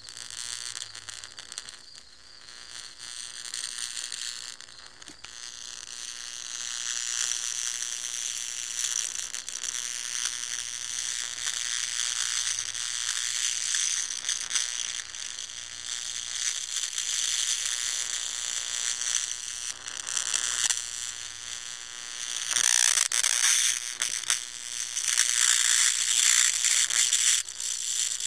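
Electric bug zapper's high-voltage grid arcing through a Chinese mantis caught on it: a continuous crackling sizzle of small sparks, louder near the end.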